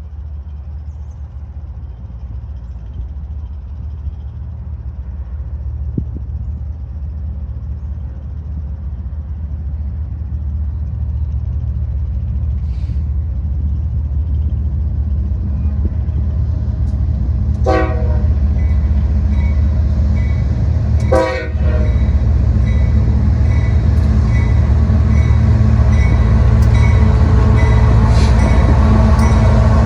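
Diesel freight locomotives approaching, their engine rumble growing steadily louder, with two short horn blasts about two-thirds of the way in and more horn toward the end.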